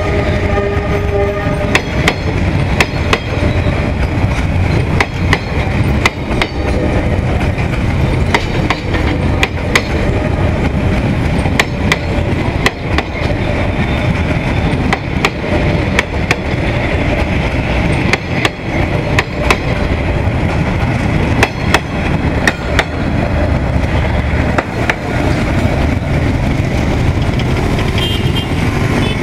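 Empty Vietnam Railways passenger coaches rolling past close by. A steady rumble runs throughout, with repeated clacks as the wheels cross the rail joints.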